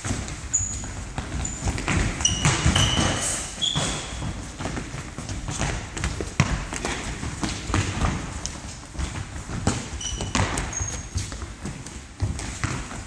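Indoor football on a wooden gym floor: repeated ball kicks and thuds with running footsteps, echoing in a large hall. Short high sneaker squeaks on the floor come a couple of seconds in and again about ten seconds in.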